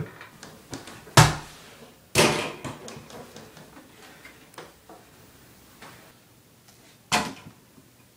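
A few sharp thumps and knocks: a very loud one about a second in, another loud one just after two seconds that dies away over about half a second, and one more a little after seven seconds, with lighter knocks between them.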